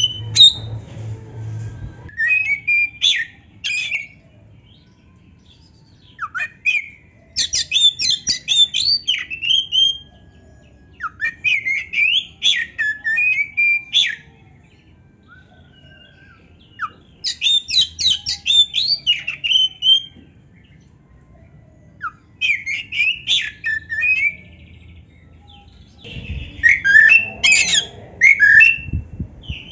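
Oriental magpie-robin (kacer) singing in about six loud bursts of fast, varied song, each two to three seconds long with short pauses between. Each burst mixes rapid chattering notes with sweeping whistles.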